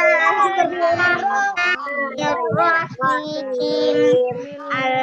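Children's voices chanting a prayer together in a sing-song melody, with held notes and gliding pitch, heard over a video-call connection.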